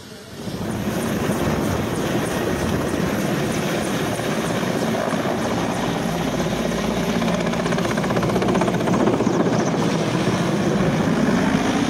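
Large navy transport helicopter flying low overhead. Its rotor and turbines make a loud, steady noise with a rapid blade beat, which comes in abruptly about half a second in.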